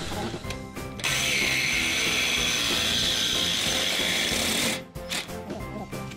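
Handheld reciprocating saw cutting through square steel tubing, the blade rasping through the metal at a steady rate. It starts about a second in and stops just before the five-second mark.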